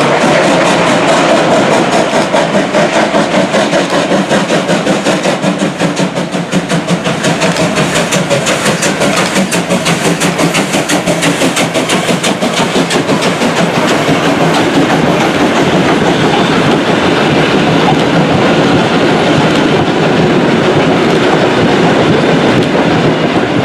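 Steam locomotive, a Prussian P8, passing close by with a train of vintage coaches. A fast regular beat runs through the first half of the passing, then the coaches' wheels clatter over the rail joints.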